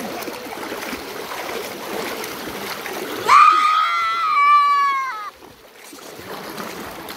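Sheep and people wading and splashing through muddy floodwater. About three seconds in comes a loud, high, wavering cry lasting about two seconds, the loudest sound here.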